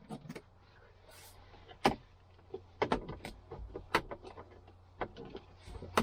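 Irregular sharp clicks and knocks of hands and tools working loose the lower seat-belt hardware and plastic interior trim inside a car, over a faint steady low hum.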